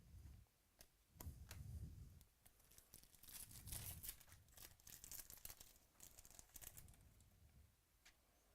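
Faint crinkling and tearing of foil trading-card pack wrappers as packs are opened and cards handled, with irregular crackles throughout.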